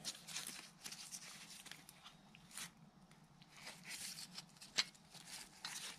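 Faint handling noise from nitrile-gloved hands turning a steel automatic-transmission clutch drum and gear assembly: scattered light clicks and rustles, one a little sharper about five seconds in.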